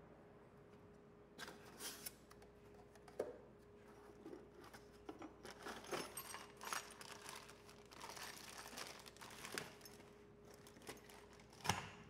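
Packaging being handled while a garbage disposal is unboxed: irregular rustling and crinkling of a plastic bag, foam packing and cardboard flaps, starting about a second and a half in, with a sharper knock near the end.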